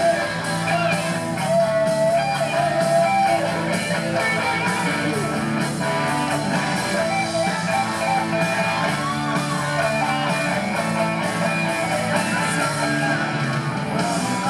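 Live rock band playing a guitar-led passage: two electric guitars over a full drum kit and bass.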